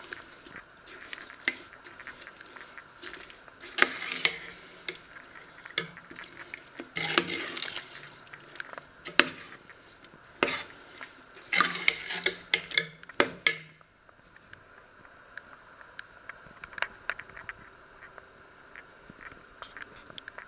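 Cut fruit being stirred in a stainless steel pot, a spoon scraping and knocking against the metal in several bursts. About two-thirds of the way through the stirring stops, leaving only faint clicks.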